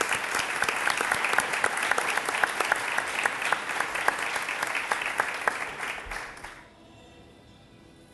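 Audience applauding, a dense patter of many hands that dies away about six and a half seconds in.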